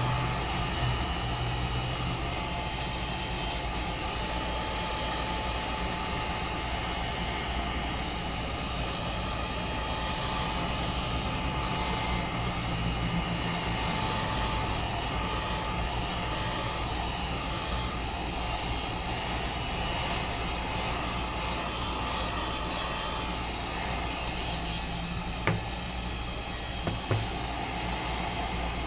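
Heat gun running on its low setting with a steady blowing rush and a faint steady whine, warming a phone's glass screen to soften the adhesive. A few light clicks near the end.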